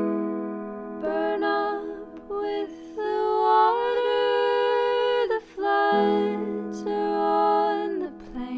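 Music: wordless sung notes in layered harmony, held and changing every second or two, over a sustained low note.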